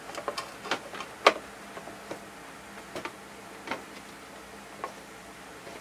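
Scattered light clicks and taps of wires and plastic parts being handled by gloved fingers while wiring a photocell to a light fixture's circuit board. The clicks come irregularly, thickest in the first second and a half, with the sharpest about a second in.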